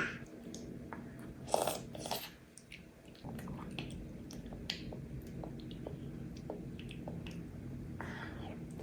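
Faint chewing and eating sounds: scattered small wet mouth clicks, with two short louder bursts at about a second and a half and two seconds in.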